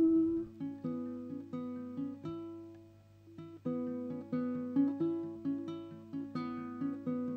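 Baritone ukulele picked in a slow, simple melody of single plucked notes, a few a second, each ringing and fading. A held sung note ends just as the picking begins.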